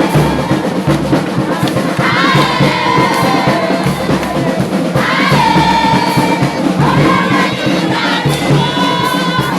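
Music: a group of voices singing long held phrases over a steady beat.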